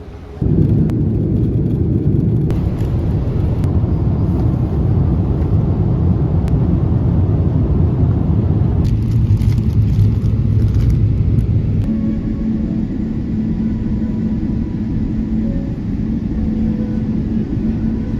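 Steady low rumble of a moving vehicle heard from inside, starting and stopping abruptly. About two-thirds of the way through, the rumble thins and a faint steady hum comes in.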